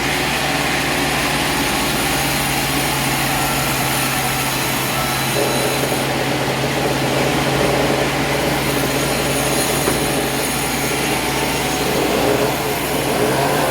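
A machine running steadily with a constant low hum and a noisy whir over it.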